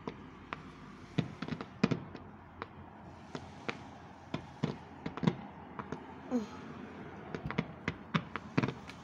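Fireworks going off in the distance: irregular sharp pops and bangs, several a second, some much louder than others.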